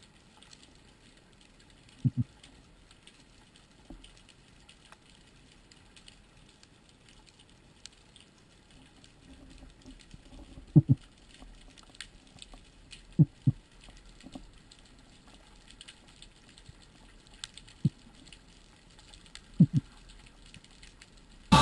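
Underwater sound while swimming with a speargun: a faint steady background with light scattered crackle, broken by sharp low knocks, mostly in close pairs, five or six times.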